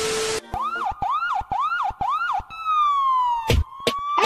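A burst of TV-static hiss with a steady tone cuts off just after the start. Then siren-like wails rise and fall about twice a second, followed by one long falling glide, a few sharp clicks and a rising glide.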